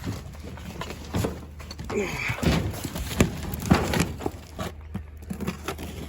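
Rummaging through a packed box of belongings: irregular knocks and clatters of items being moved and set down, with a brief rustle about two seconds in.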